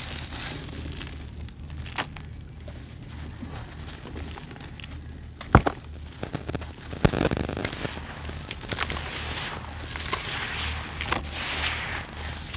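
Hands crushing a dry sand-cement chunk, its gritty crumbs crackling and pouring into wet mud in a plastic tub. A few sharp cracks stand out: the loudest about five and a half seconds in, another about a second later. A low steady hum runs underneath.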